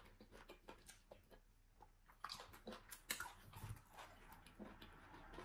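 Faint, wet chewing and mouth clicks of a person eating eba with slimy ogbono soup by hand, with a few louder smacks about two and three seconds in.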